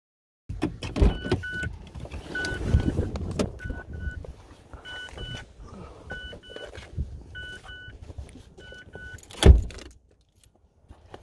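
A Mazda hatchback's warning chime sounds with the driver's door open: short double beeps repeat about every 1.2 seconds, over rustling as someone climbs out of the seat. A heavy thud comes about nine and a half seconds in.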